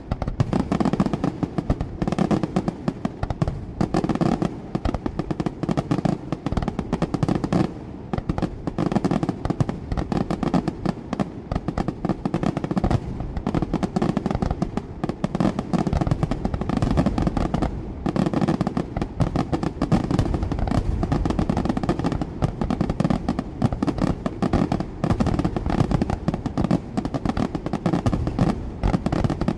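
A dense barrage of aerial firework shells bursting, the reports overlapping in rapid succession with no pause, swelling and easing in waves every second or two.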